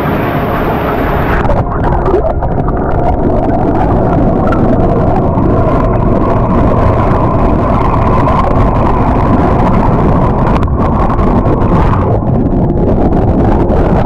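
Water churning below a waterfall, picked up by an action camera held in the foaming pool: a loud, steady rush that turns dull and low once the camera goes under the surface about a second and a half in.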